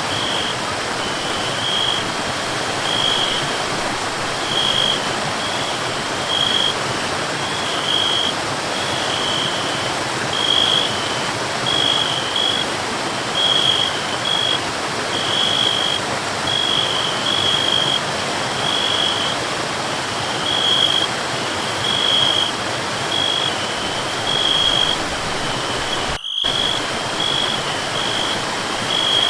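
Forest waterfall rushing steadily, with a high, thin chirp repeating in short pulses about once a second. Near the end everything cuts out for a split second.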